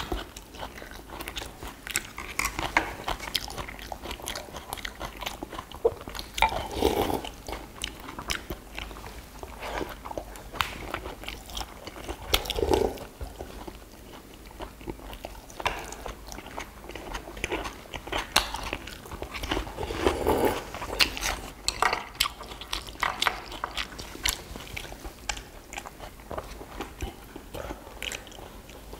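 Close-miked eating sounds of several people chewing sundae (Korean blood sausage) and boiled meats, with many small clicks of chopsticks on earthenware bowls and dishes, and a few louder mouth sounds about 7, 13 and 20 seconds in.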